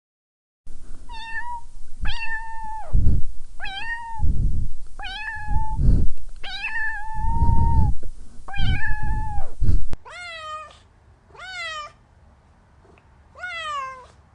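Domestic cat meowing repeatedly: about seven loud, drawn-out meows with a low rumble under several of them. Then, about ten seconds in, three quieter meows that each fall in pitch.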